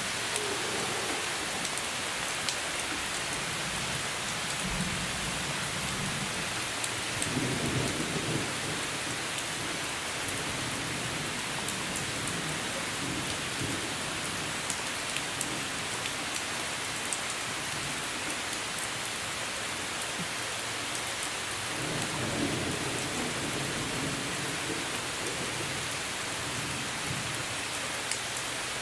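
Steady rain falling on foliage, with scattered sharp taps of nearby drops. Thunder rumbles low twice, once a few seconds in and again about three quarters of the way through.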